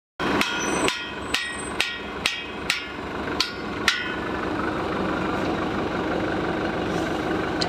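A hammer striking metal, eight ringing blows about half a second apart, while a bearing is being replaced on a forklift's mast roller assembly. After about four seconds the blows stop and only steady background noise remains.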